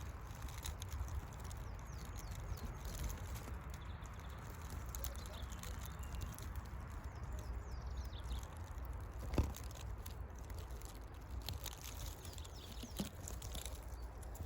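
Countryside ambience: a steady low wind rumble on the microphone, faint distant birdsong, and light rustling and ticks, with one sharper knock about nine seconds in.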